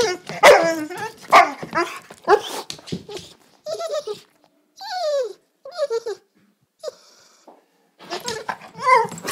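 Yellow Labrador retriever whining and whimpering in a string of short, pitched calls, many sliding down in pitch, begging for its dinner. The calls thin out and pause briefly about seven seconds in before a last burst.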